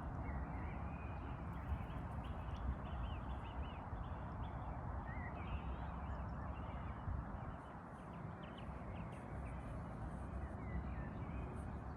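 A flock of birds calling, many short chirping calls in quick succession, over a steady outdoor background hiss.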